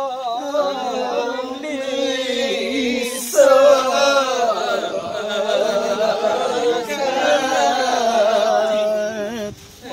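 Singing of a Yakthung (Limbu) palam song: a chant-like melody of long held notes with a strong waver, pausing briefly about three seconds in.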